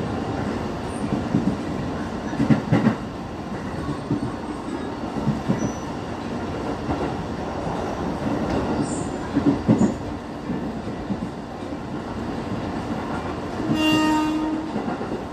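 Ex-JR 205-series electric commuter train running at speed, a steady rumble with clacks of the wheels over rail joints a couple of times. A train horn sounds for about a second near the end.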